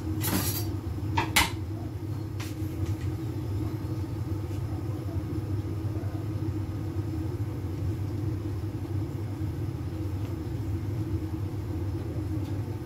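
Gas stove burner heating a covered pot of water that is not yet boiling: a steady low rumble, with a few short clicks in the first couple of seconds.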